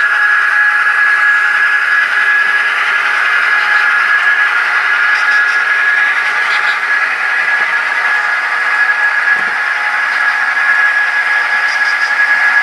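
Model train running on a layout: a steady hiss with a constant high whine.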